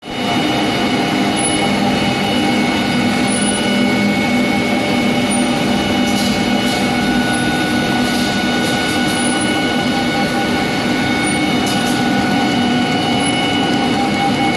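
CHM A4/A3 cut-size paper sheeting machine running at speed: a steady mechanical drone with several constant tones over a dense whir from the turning rollers and cutter as the paper web feeds through.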